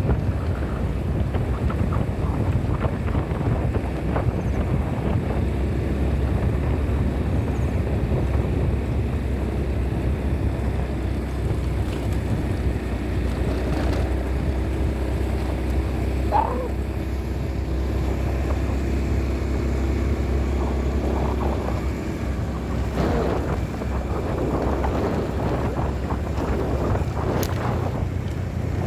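Wind buffeting the microphone over a steady low rumble, with a few faint short tones partway through.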